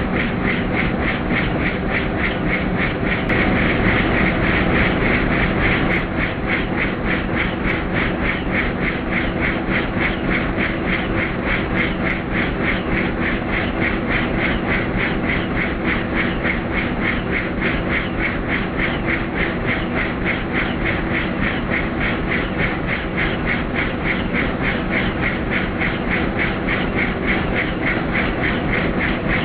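Helicopter in flight: the rotor blades beat in a fast, steady pulse over the continuous drone of the engine.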